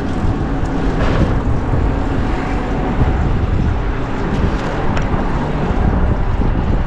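Steady rush of wind on the microphone mixed with city traffic noise while riding a bicycle along the street, with a few faint clicks.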